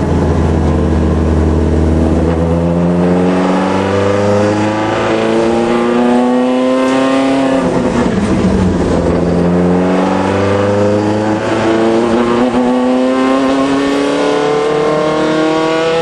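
Alfa Romeo Alfasud racing car's flat-four engine at full throttle, heard from on board. It climbs steadily in revs, drops sharply at an upshift about eight seconds in, then climbs again in the next gear.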